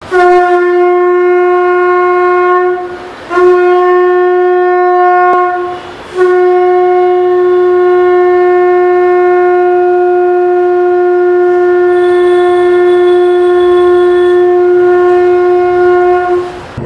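Conch shell (shankha) blown in three blasts on one steady note: two short blasts of a few seconds each, then a long blast held about ten seconds.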